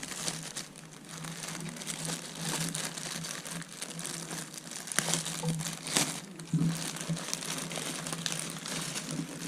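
Packaging of a slot-car kit crinkling and rustling as it is opened and handled, with a couple of sharp clicks about two-thirds of the way in.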